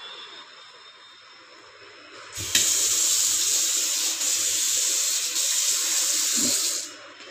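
Kitchen tap turned on about two seconds in, water running steadily into a stainless steel sink bowl, then shut off just before the end.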